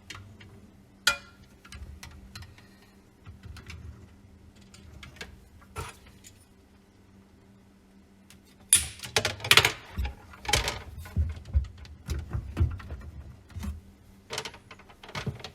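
Plastic clicks, knocks and rattles of reverse osmosis tubing and fittings being handled as a drain line is connected under a sink. Sparse at first, then a busy run of clicks starting about halfway through and another short run near the end.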